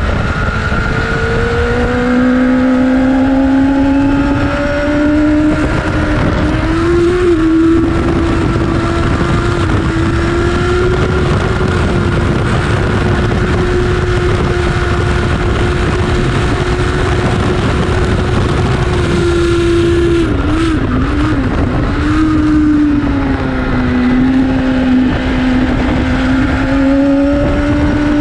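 Superbike inline-four engine running hard on track, with heavy wind rush: the revs climb over the first several seconds and hold steady for a long stretch, then waver and drop about twenty seconds in before climbing again near the end.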